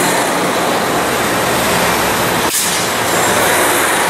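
Passenger train rolling by on the rails, a loud steady rush of noise with a low hum underneath, broken once for an instant about two and a half seconds in.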